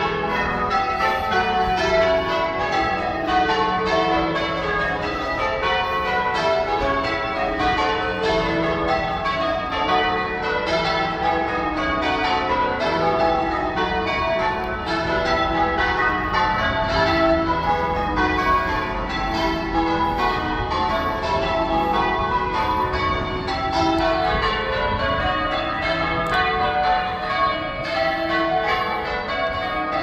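Church tower bells ringing in a continuous, rapid succession of strikes, each bell's tone overlapping the ringing of the others.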